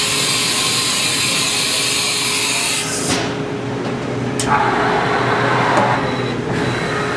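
2000 Haas Minimill vertical machining center running a program: a steady high hiss cuts off about three seconds in, a click follows about a second later, then a rougher whirring noise for about two seconds, over a steady hum.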